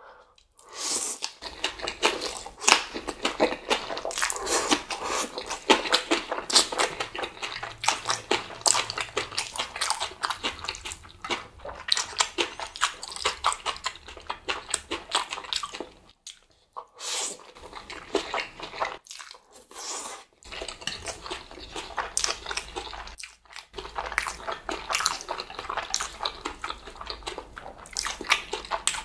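Close-miked eating: instant black bean noodles (Chapagetti) being slurped and chewed with wet smacking and crunching, broken by a few brief pauses.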